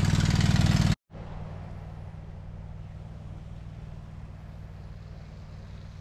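Steady low hum of a running water pump. About a second in the sound cuts off abruptly, then the same hum carries on more quietly.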